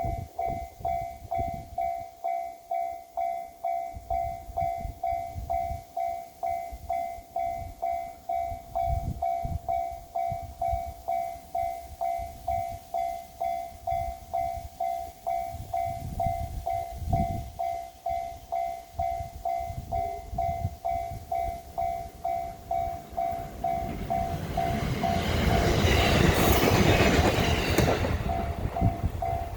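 Level-crossing warning bell ringing in an even two-tone rhythm, about one and a half strikes a second. About 24 seconds in, a Shinano Railway SR1 series electric train grows loud and rushes over the crossing for about four seconds, its wheel and running noise drowning out the bell before the ringing comes through again.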